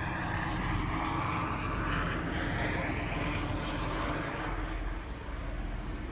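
Helicopter flying overhead: a steady engine and rotor drone that swells, then eases off in the last second or so.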